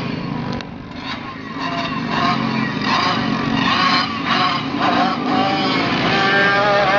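Several race car engines running laps on a dirt oval, their pitch rising and falling with throttle, growing louder in the last few seconds as the cars come down the straight.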